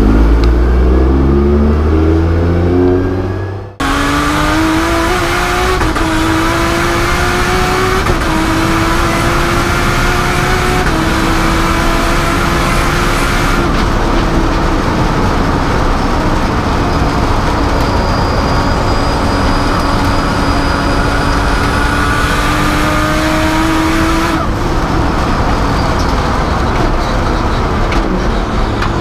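Nissan R32 Skyline GT-R race car's turbocharged engine accelerating hard. First it pulls away and fades, then it is heard on board, its pitch climbing through each gear and dropping back at every upshift.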